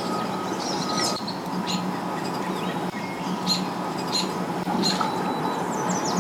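Small birds chirping in short, repeated calls about every second, over a steady low motor hum.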